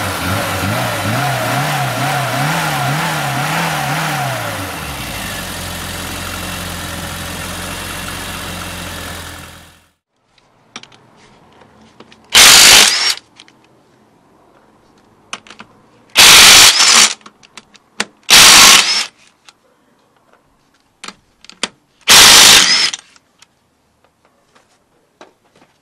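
A car engine running, its pitch swinging up and down with a few revs, then cutting off about ten seconds in. After it, a Ryobi cordless impact wrench rattles in four short, very loud bursts, undoing the wheel nuts.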